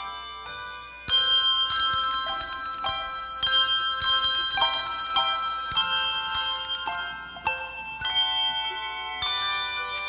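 Handbell choir playing: chords of struck handbells that keep ringing on. It starts softly, has a loud entry about a second in, and has fresh strikes near the end.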